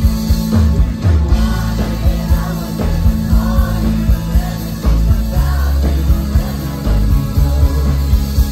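Indie rock band playing live: electric guitars, keyboards and drums, loud and heavy in the low end, heard from within the crowd.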